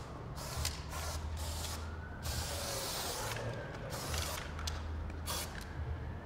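Aerosol spray-paint can hissing in a string of short bursts and a few longer sprays, over a steady low rumble.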